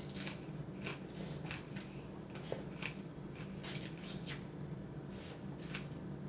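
A person eating noodle soup with fresh greens: a string of short, soft, irregular mouth clicks and smacks from slurping and chewing, over a faint steady low hum.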